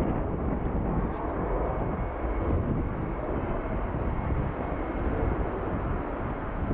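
Fokker 70 jet's two rear-mounted Rolls-Royce Tay turbofans at take-off power, a steady low rumble with a faint high whine above it, heard from behind as the airliner rolls and lifts off.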